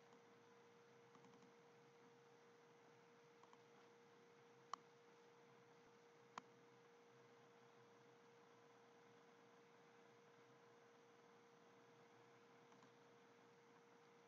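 Near silence: a faint steady hum tone over light hiss, with two single sharp clicks, about five and six and a half seconds in.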